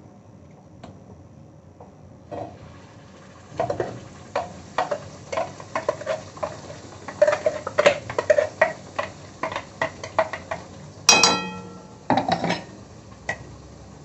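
Metal spoon stirring and scraping masala paste around a kadhai of hot oil, a rapid irregular run of clicks and scrapes against the pan. Near the end come two short ringing metallic clanks.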